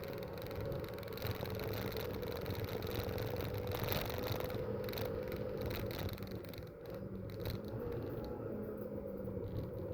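Racing car engines running on a circuit, giving a steady drone with a slight rise in pitch about eight seconds in, heard through a rough, poor-quality recording.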